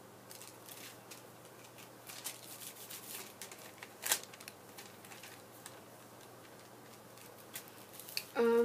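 Light rustling and small clicks of craft-kit pieces being handled on a table, with one sharper click about four seconds in.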